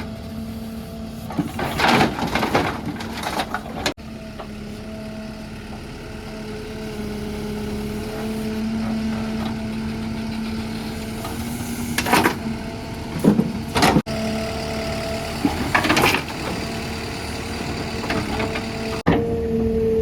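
Heavy diesel machinery running steadily at a constant pitch, with a few brief, loud, noisy sounds over it.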